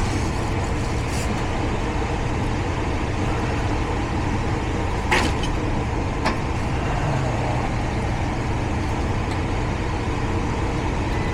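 Gas furnace running with a steady low motor hum and a rush of air. Two short clicks come about five and six seconds in.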